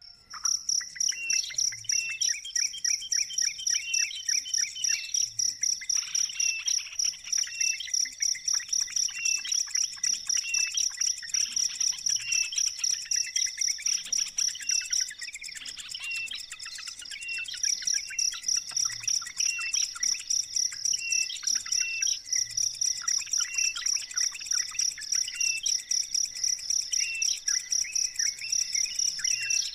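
An insect's high, rapidly pulsing trill, which drops out briefly about halfway through, with a bird's short chirp repeating about once a second over it.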